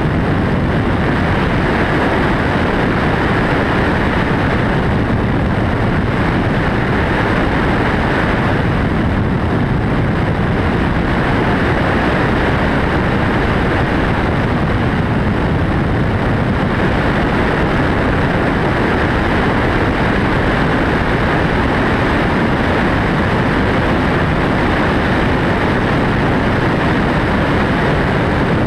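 MD600N helicopter in cruise flight: loud, steady engine and rotor noise with no change in pitch or level.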